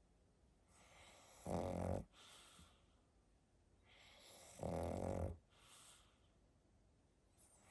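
Pug snoring in its sleep: two loud snores about three seconds apart, each with a softer breath before and after it.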